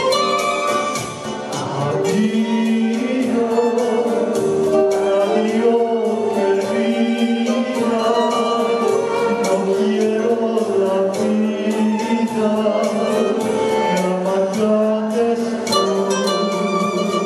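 Live song: a man singing into a microphone, accompanied by violin and electric piano, with a brief lull about a second in.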